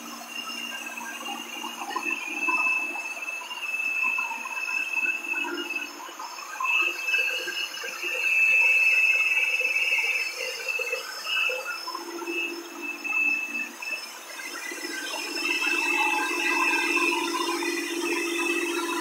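Rotary screw air compressor running: a steady hum with a high whine that comes and goes over it, and an airy hiss.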